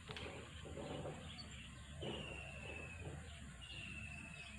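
A bird repeating a short, high whistled note that falls slightly in pitch, twice, about a second and a half apart, over faint background noise.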